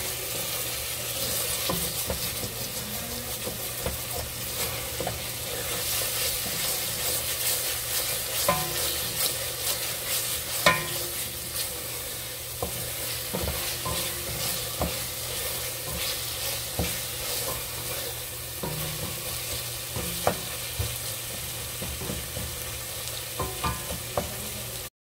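Chopped onions frying and browning in a stainless steel pot, sizzling steadily while a wooden slotted spatula stirs and scrapes through them. Scattered light knocks of the spatula against the pot sound throughout, the sharpest about halfway through.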